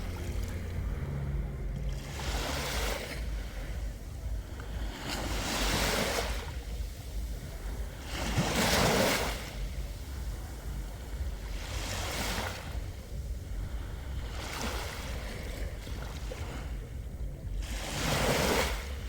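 Black Sea waves breaking on the shore: about six washes of surf, one every three seconds or so, each swelling and fading, the loudest about nine seconds in.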